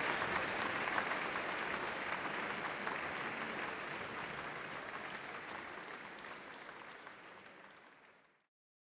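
Concert audience applauding: dense, even clapping that slowly fades away and cuts off to silence near the end.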